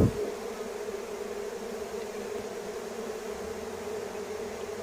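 Honeybees buzzing steadily around an opened hive, an even hum, with a short low thump at the very start.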